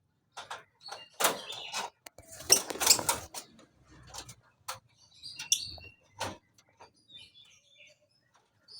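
Lovebird chirping with short calls amid clattering and rustling noises, the loudest stretch of clatter about one to three seconds in.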